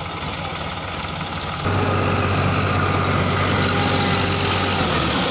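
Diesel tractor engine running steadily. About a second and a half in, it turns suddenly much louder and closer, a steady engine note that holds.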